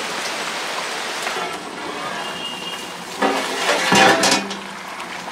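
A large metal pot lid clanks against the cooking pot a few seconds in, with a short metallic ring, over a steady hiss.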